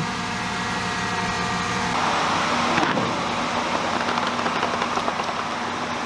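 Polyjacking foam-injection rig's machinery running with a steady hum while foam is pumped under the concrete slab; about two seconds in, a louder, noisier rush joins it and carries on.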